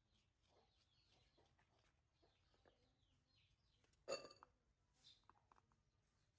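Faint birds chirping in the background, with one short, loud animal call about four seconds in and a fainter call about a second later.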